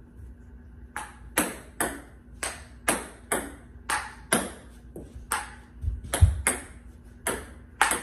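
Table tennis ball in a solo rally against a wall: sharp clicks of the ball off paddle, table and wall. They start about a second in and come about two to three a second, with a low thud among the loudest hits about six seconds in.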